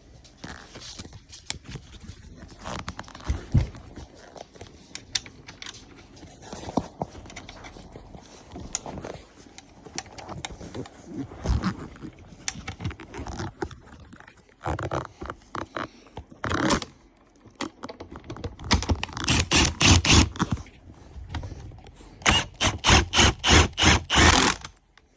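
Hand work on a car seat's metal floor bracket while it is fitted to a Viper seat: scattered scraping, clicks and knocks of metal parts and tools. In the last several seconds come quick runs of evenly spaced strokes, louder than the rest.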